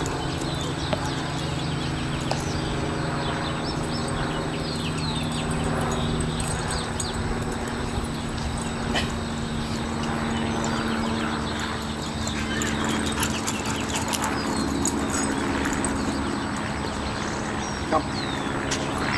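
Outdoor background: a steady low hum with scattered short high chirps and a few faint clicks.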